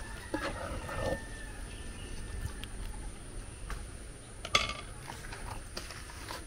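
Light clinks and knocks of a spoon against an aluminium cooking pot and dish while soup is served out, with one sharp clink about four and a half seconds in.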